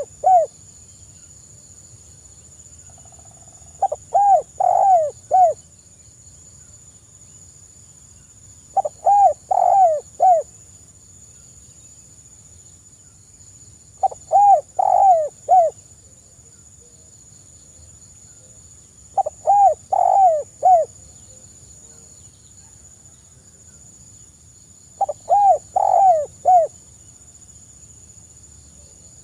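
Spotted dove cooing softly: a short phrase of three or four arched notes, repeated about every five seconds, five full times, with the tail of a phrase right at the start.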